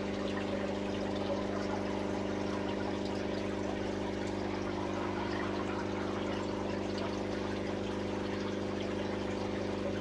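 Aquarium pump running: a steady hum with the sound of moving water over it.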